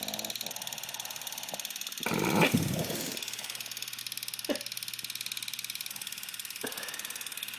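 Boston terrier puppy snoring in its sleep: one loud snore about two seconds in, lasting about a second, and quieter breathing otherwise.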